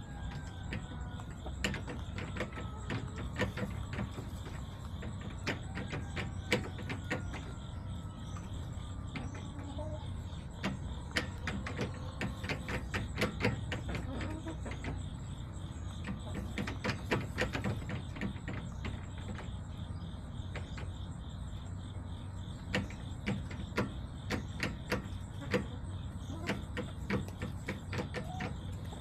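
Backyard chicken-run ambience: crickets chirring steadily over a low traffic rumble, with bursts of rapid sharp clicks and taps. Two faint tones fall in pitch in the first third.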